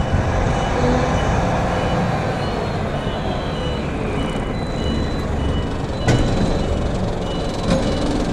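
Truck diesel engine running with a steady low rumble, while a thin electronic warning beep repeats about twice a second. A single clunk is heard about six seconds in.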